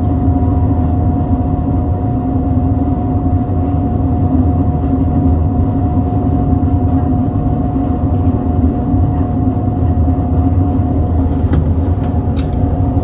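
Car ferry's engines and machinery running, a steady low drone with a constant hum tone, heard from on board as the ship gets under way from the berth. A few faint clicks near the end.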